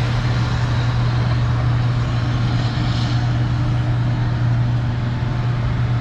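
An engine running steadily close by, a constant low hum that does not change in pitch or loudness.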